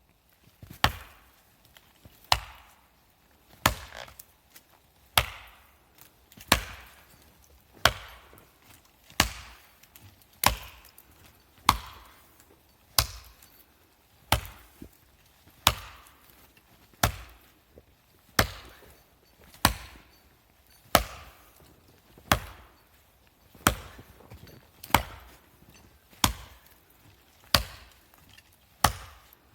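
An axe chopping wood in steady, even strokes, about one blow every second and a bit, each a sharp knock with a short ring after it.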